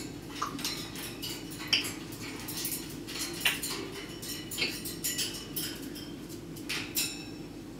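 A parrot making a rapid, irregular series of sharp clicks and short chirps.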